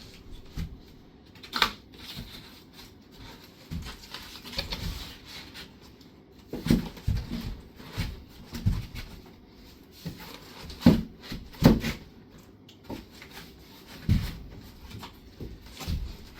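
Stiff cardboard shelf pieces being handled and slotted into a cardboard wardrobe frame: irregular knocks, taps and scrapes of cardboard, with a few sharper knocks.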